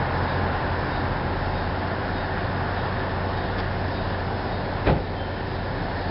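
Steady outdoor background noise with a constant low hum, like traffic and machinery, and a single short knock about five seconds in.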